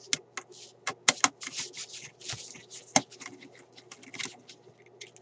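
Irregular small metal clicks, taps and scrapes as a screwdriver and loose parts are worked on the steel chassis of a Philco car radio, with a few sharper clicks about a second in and again around three seconds in. A faint steady hum runs underneath.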